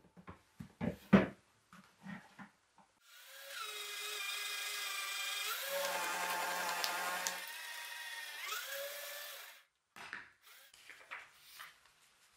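Electric paper shredder motor running for about six seconds. Its whine drops in pitch while sheets are fed into the slot and cut, then rises again as the blades clear. Before it there are a few knocks and clicks as the shredder is taken out of a cabinet, and after it light paper rustling.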